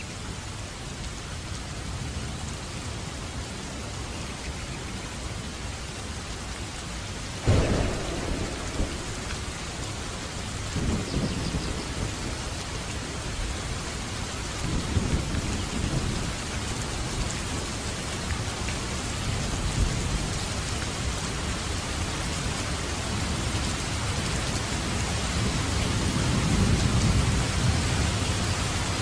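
Heavy rain falling steadily, with a sudden sharp thunderclap about a quarter of the way in, followed by several low rolls of thunder that grow louder toward the end.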